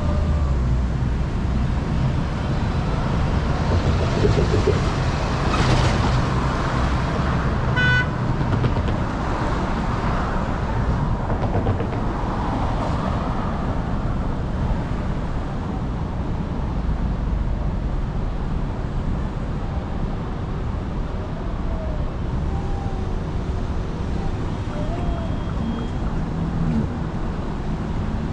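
Steady road traffic at a busy city intersection: cars and other vehicles running and passing, a little louder in the first half. There is a short beep about eight seconds in.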